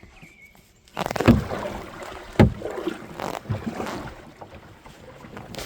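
Kayak on the water: splashing with a few sharp knocks against the hull, the first two about a second apart.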